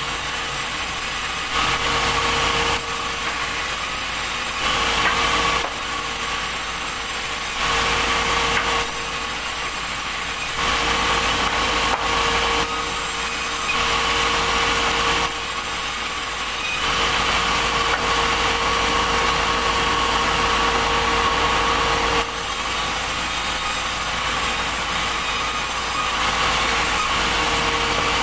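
Sawmill machinery running and sawing through logs: a steady motor hum with the saw cutting wood, changing abruptly in texture every second or two.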